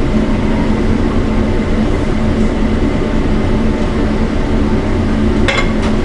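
Steady roar of commercial kitchen ventilation with a low hum, and a couple of quick clinks of cookware near the end as a pan is set against a plate.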